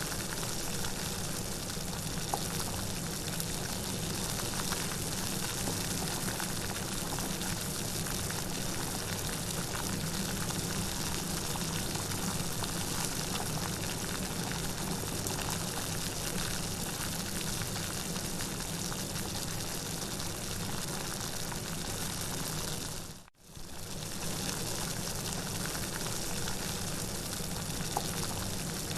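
Steady heavy rainfall, an even hiss of falling water. About three quarters of the way through it fades out for a moment and then comes back in.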